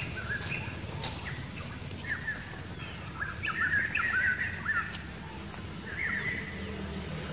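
Birds chirping in several quick runs of short high notes, loudest a little past the middle, over a steady low hum.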